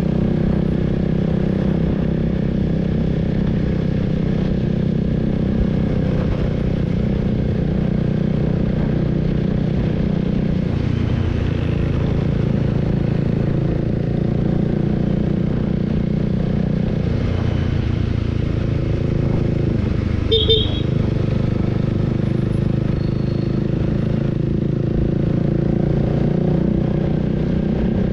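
Honda Rebel 300's single-cylinder engine running steadily at cruising speed, heard from the rider's position, with its pitch easing down and back up about two-thirds of the way through. A brief horn toot sounds about twenty seconds in.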